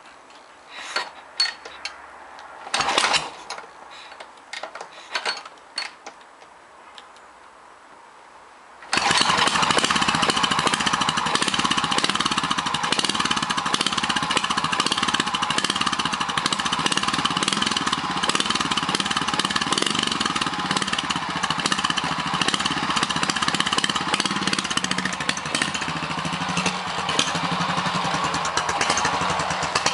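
BSA B40 trials bike's single-cylinder four-stroke engine being kick-started: several kicks with short clanks and one brief burst about three seconds in, then it catches about nine seconds in and runs steadily. It is ridden off near the end.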